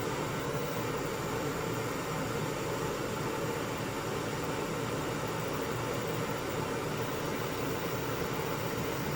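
Handheld gas torch burning with a steady hiss, heating copper lugs to solder 4/0 battery cable into them.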